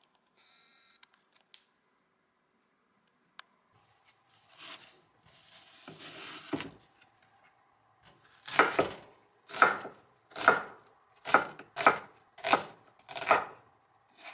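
Chef's knife chopping an onion on a wooden cutting board: seven sharp cuts, a little under a second apart, in the second half, each the blade going through the onion and striking the board.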